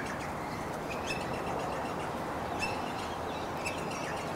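An approaching Comeng electric suburban train and a B-class diesel locomotive on the rails: a steady rolling noise, with a few short high chirps about one, two and a half and three and a half seconds in.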